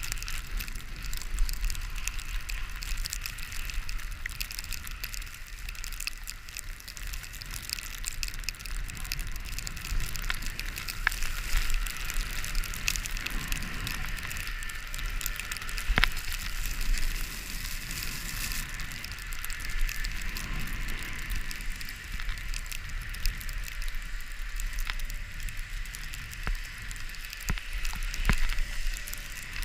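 Crackly hiss of skis running over snow, dotted with small clicks and scrapes, over a low, uneven rumble of wind on the microphone.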